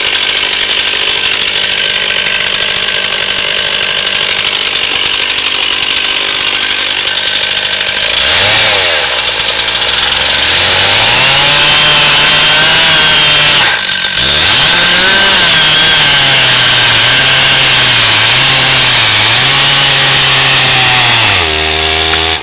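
Two-stroke chainsaw running steadily, then revving up about 8 seconds in and cutting wood, its engine pitch wavering under load. There is a brief dip partway through, and the revs fall off near the end.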